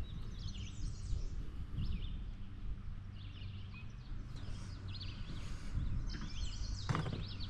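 Birds chirping repeatedly in short calls over a steady low rumble, with a single sharp knock about seven seconds in.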